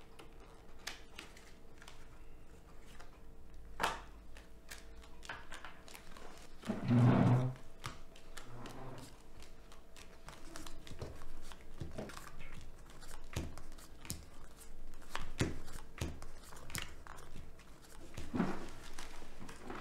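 Playing cards being shuffled and dealt onto a cloth-covered table: a scatter of light flicks and soft slaps, with a louder, fuller rustle about seven seconds in. A faint steady hum sits underneath.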